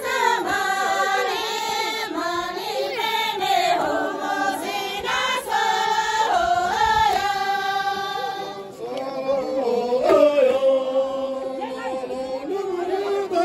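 A group of voices, high like women's, singing a folk song together in unison with no instruments, in long held notes. About nine seconds in the tune drops lower.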